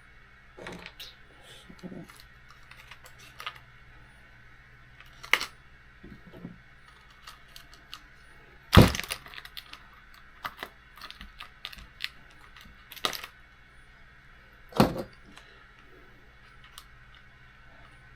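Small plastic and metal RC car parts clicking and knocking as they are handled and fitted together by hand: irregular sharp clicks, a few louder knocks among them, over a faint steady hum.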